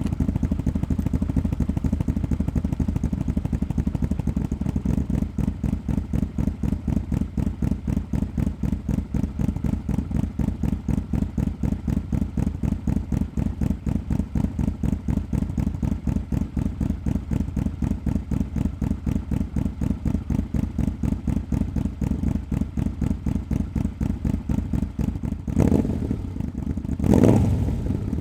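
Yamaha V-Max 1200's V4 engine idling through a Supertrapp muffler with all its discs removed, a steady pulsing low rumble. Near the end the throttle is blipped twice and the revs briefly rise.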